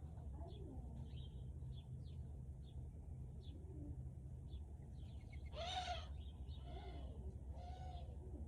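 Wild birds calling: a scatter of short high chirps and some low cooing notes, with one louder call about six seconds in. Under them runs a steady low rumble.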